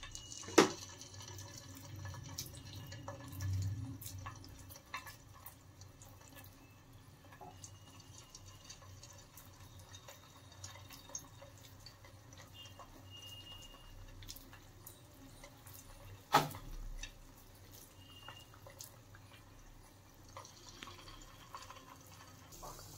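Vegetable kofta balls frying gently in hot oil in a kadai on low heat: faint sizzling with small crackles and pops. Two sharp knocks stand out, about a second in and just past the middle.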